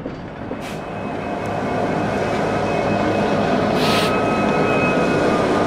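1:29-scale model diesel locomotive leading a freight train, its running sound and wheels on the rails growing louder as it approaches over the first three seconds, then holding steady. Two short hisses, one near the start and one about four seconds in.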